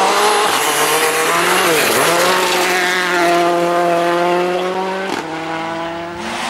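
Rally car engine running at high revs on a loose gravel stage, with tyre and gravel noise. The engine note drops sharply and climbs back about two seconds in, then holds high; the sound changes about five seconds in.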